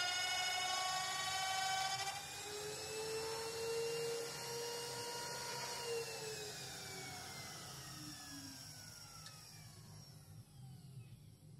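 Router and wood lathe of a Symtec copy-lathe setup running with a high-pitched whine as the profile cut finishes. The motors are then switched off and coast to a stop: the pitch glides steadily down over the last several seconds while the sound fades.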